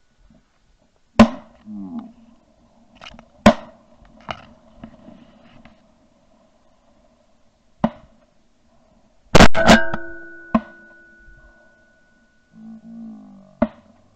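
Shotgun shots at ducks in flight: about seven sharp blasts at uneven intervals, two of them in quick succession about two-thirds of the way through, over quiet background music.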